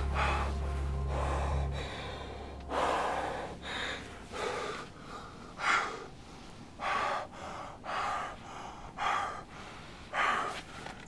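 A man gasping for breath: about eight heavy breaths in and out, roughly a second apart. A low music drone underneath fades out about two seconds in.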